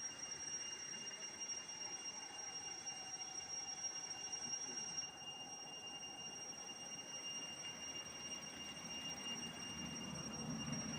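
A steady, high-pitched whine held on one pitch over faint background noise. Its highest part fades about halfway through.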